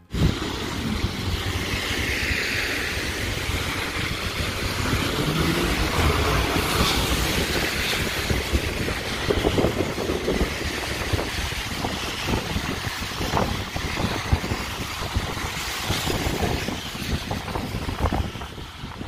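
City traffic, cars and buses passing on a rain-wet street, with wind buffeting the microphone.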